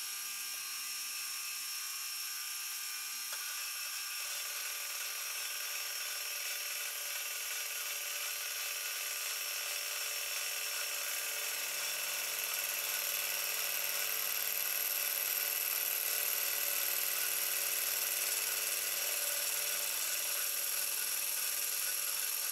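Milling machine face mill cutting across a half-inch steel plate to face it off: a steady, high, whining cut made of many fine tones, growing a little louder about halfway through.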